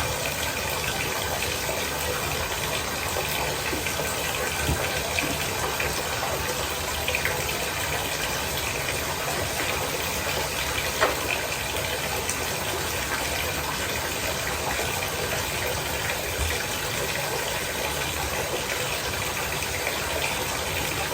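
Shower water running steadily at warm temperature, with a couple of small knocks partway through.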